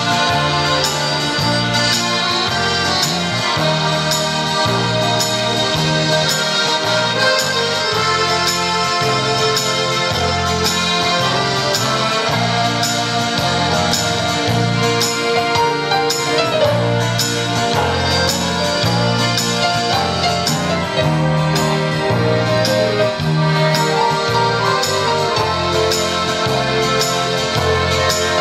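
Piano accordion playing a tune over a steady beat.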